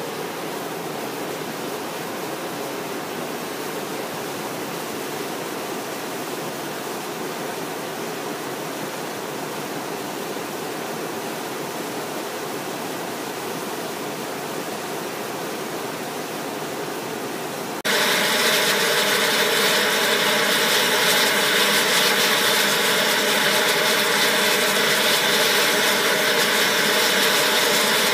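Volcanic fumarole venting steam, a steady rushing hiss. About eighteen seconds in the sound jumps abruptly louder, a second, stronger vent with a denser hiss carrying faint steady tones.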